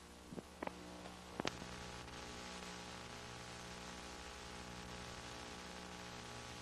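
Low steady electrical hum and hiss, with a few faint clicks in the first second and a half.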